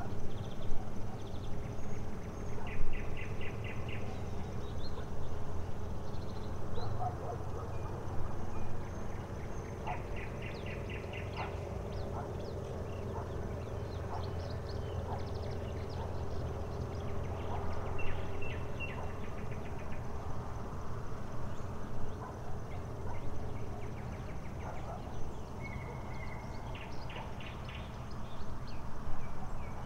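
Outdoor night ambience: a steady low rumble, with a short run of rapid chirping ticks about every eight seconds (near the start, around ten seconds in, around eighteen seconds in and near the end) and scattered faint clicks.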